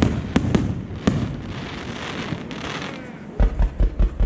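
Aerial fireworks bursting in a display finale: several sharp bangs in the first second, a stretch of hiss as the bursts spread, then a quick run of about six deep booms near the end.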